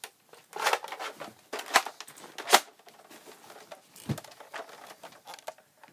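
Handling and rustling noises close to the microphone: three short scratchy rustles in the first three seconds, then quieter rustling with a soft low thump about four seconds in.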